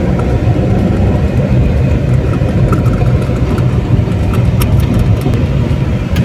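A car's engine and tyres make a steady low rumble, heard from inside the cabin as it drives along. A few short, sharp clicks come about three quarters of the way through.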